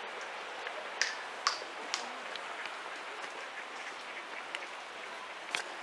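Steady outdoor background hiss with a few sharp clicks or taps: one about a second in, two more in the next second, and one near the end.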